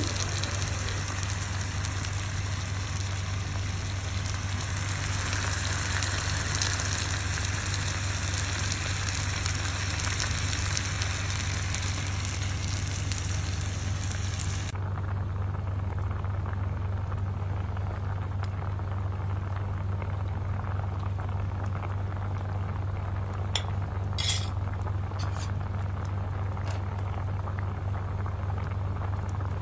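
Eggs and oyster and shimeji mushrooms sizzling on a hot grill plate, over a steady low hum. About halfway through the sizzle cuts off, giving way to the quieter simmer of hot pot broth, with a few clinks of a ladle against the pot near the end.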